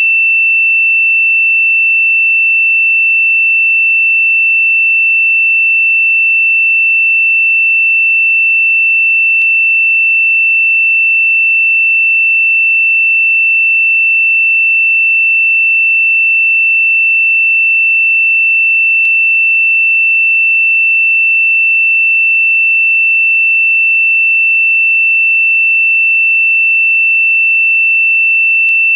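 A single electronically generated pure sine tone, high-pitched and held perfectly steady at one pitch and one loudness, with a few very faint clicks about every nine and a half seconds.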